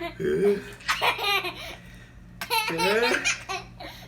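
Laughter in three bouts.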